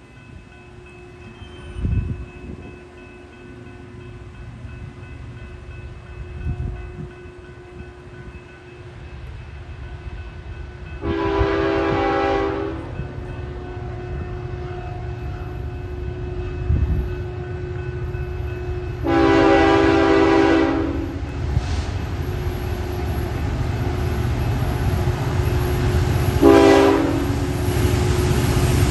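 Horn of an approaching BNSF diesel freight locomotive sounding a chord: two long blasts and one short one near the end. Under it, the train's low rumble grows steadily louder as it nears.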